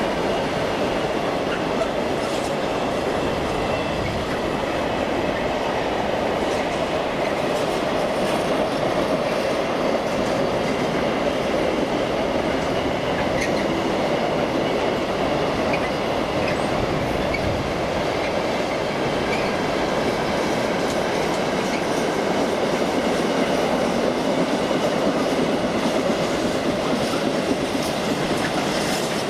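A freight train passing at steady speed, its wagons rolling over the track with a continuous rumble, some faint clicking and a little wheel squeal.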